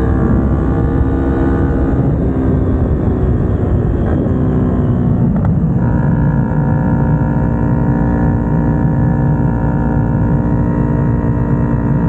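Kawasaki Ninja 250R's parallel-twin engine running under way. Its note shifts about five seconds in, then holds steady.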